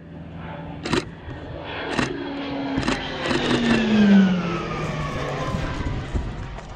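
Aircraft passing low overhead, its engine tones sliding down in pitch as it goes by, loudest about four seconds in. A few sharp clicks sound about one, two and three seconds in.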